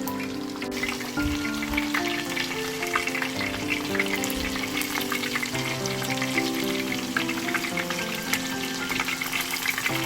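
Food frying in a pan, a dense crackling sizzle that picks up about a second in, over soft background music.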